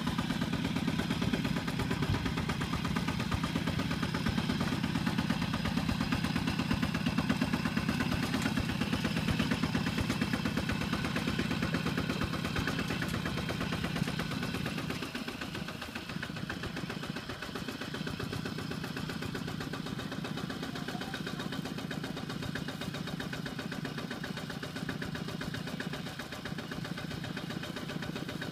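Single-cylinder diesel engine of a two-wheel walking tractor running with a rapid, steady beat while it pulls a loaded trailer. About halfway through the sound drops to a quieter idle.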